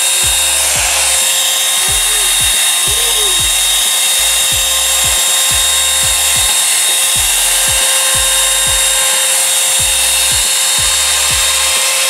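Revlon One-Step Volumizer hot-air brush running steadily: a loud rush of blown air over the fan motor's constant high whine.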